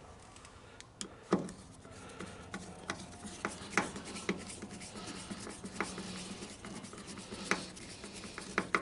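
A screwdriver turning the centre screw into a Honda recoil starter's plastic rotor: scattered light clicks and scrapes, with a few sharper ticks, over a faint steady hum.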